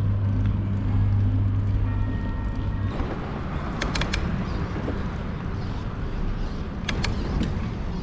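Riding noise from a bicycle on city streets: tyre and wind rumble. For the first three seconds a steady low hum runs under it, then it stops abruptly. After that come a few sharp clicks, a cluster about four seconds in and a pair about seven seconds in.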